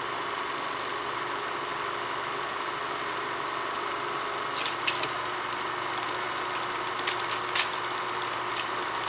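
Film projector sound effect: a steady mechanical whir with a faint hum, broken by scattered pops and crackles like worn film, a few about halfway through and more later on.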